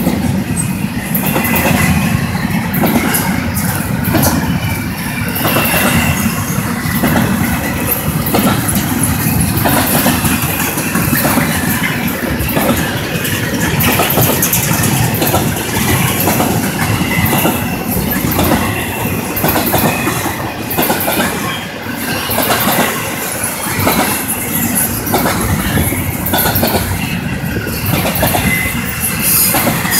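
Long freight train of intermodal well cars, many of them empty, rolling past close by. A steady rumble of steel wheels on the rails is broken by a repeated clatter of wheels knocking over rail joints, about once a second.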